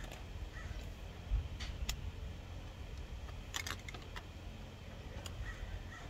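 A handful of light clicks and taps from small objects being handled, over a steady low rumble.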